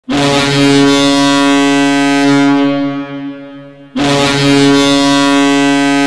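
Providence Bruins arena goal horn sounding: a long, deep, steady blast that fades away, then a second blast starting about four seconds in.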